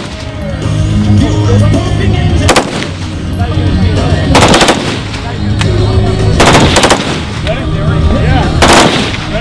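Fully automatic M16-type rifle fired in short bursts: four bursts about two seconds apart, the first very brief. Background music plays under the gunfire.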